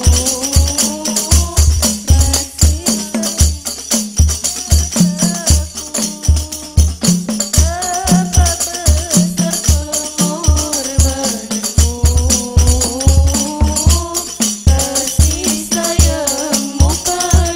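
Hadroh ensemble: voices singing a devotional melody through microphones over frame drums (rebana) and deep bass drum beating a steady, fast rhythm.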